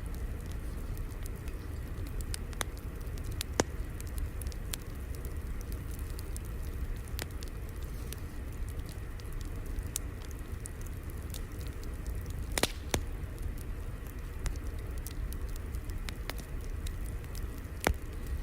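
Wood fire crackling: irregular small pops over a steady low rumble, with a few sharper, louder pops spread through.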